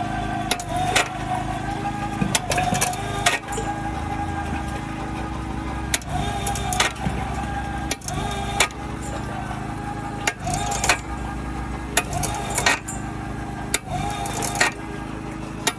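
Homemade water-well drilling rig turning its auger down the bore: a steady motor drone with a wavering whine, broken by irregular sharp metallic knocks and clanks.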